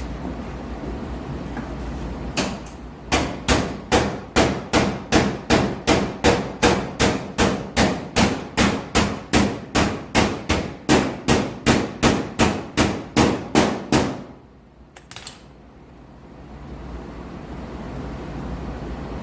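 Hand hammer striking sheet-metal body panel in a steady run of about thirty blows, roughly three a second, then stopping, typical of tapping a patch panel flush before welding. A steady low hum runs underneath before and after the hammering.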